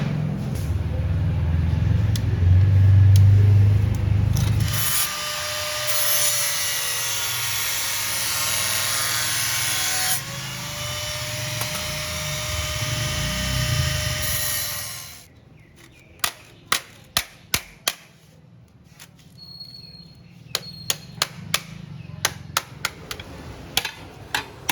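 A power tool cutting steel for about ten seconds, its motor tone wavering as it bites, after a low hum at the start; it stops suddenly and is followed by a run of light metallic taps and clinks.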